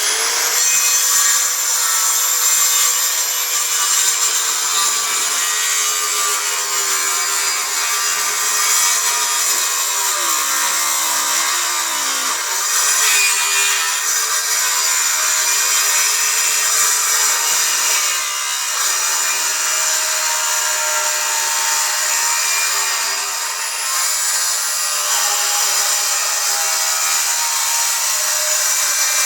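OKATZ 7-1/4-inch circular saw running and cutting through wood, the motor's whine dropping in pitch under load about ten seconds in and again near the end.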